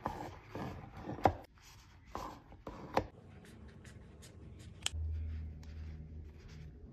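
Kitchen scissors cutting through a stack of flour tortillas: a run of short rasping snips, several ending in a sharp click of the blades closing, then a quicker string of small clicks. A low steady hum comes in about five seconds in.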